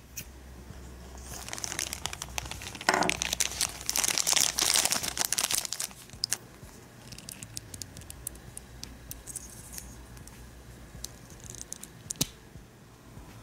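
Thin clear plastic bag crinkling and tearing as a toy wand is unwrapped, loudest from about one to six seconds in. After that come scattered light clicks of small plastic toy parts being handled and fitted together, with one sharper click near the end.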